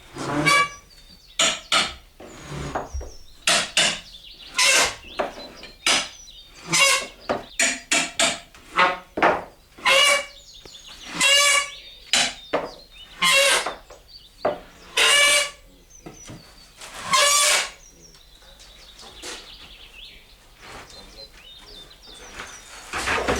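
A string of irregular knocks and bangs, about twenty of them, many ringing briefly, as of wooden and metal parts being struck and handled during dismantling. It goes quieter for a few seconds before a last loud knock near the end.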